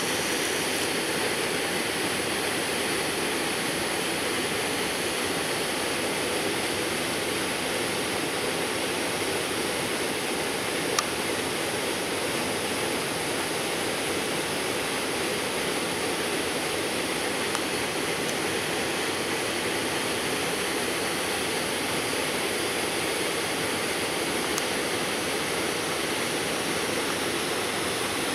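Steady rushing of a creek flowing over rocks, with a single short click about eleven seconds in.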